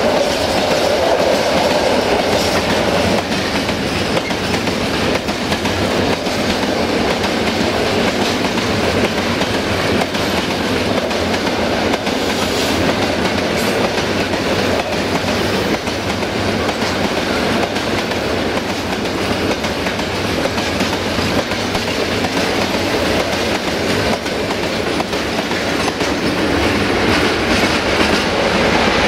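A freight train's wagons, open wagons then tank cars, rolling past close by at speed. The wheels make a steady, loud rumble and clatter on the rails.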